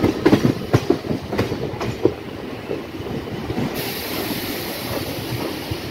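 Electric local train (EMU) running into a station, heard from inside the coach: wheels knock over rail joints several times in the first two seconds over a steady rumble, and a steady hiss joins in a little past halfway.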